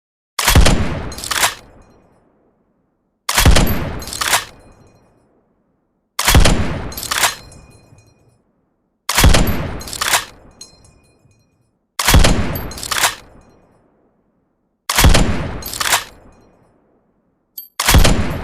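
M60 7.62×51mm general-purpose machine gun firing short full-auto bursts, seven in all, about three seconds apart with silence between. Each burst lasts about a second and trails off in a decaying echo.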